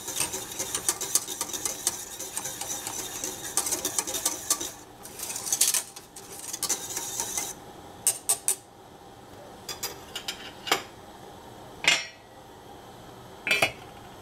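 Wire whisk beating a chocolate milk mixture in a stainless steel saucepan: a fast, continuous run of metal clicking and scraping for about seven seconds. Then a few separate metal clinks as the whisk is laid down and the steel lid is set on the pan, one of them ringing briefly.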